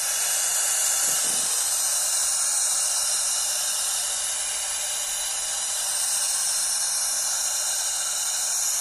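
Steady, even hiss with no breaks or changes, bright and high with little low end.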